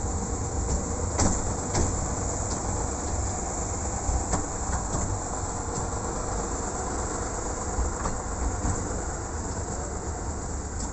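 Miniature railway carriage rolling along the track: a steady low rumble of the wheels with a few sharp clicks, as at rail joints.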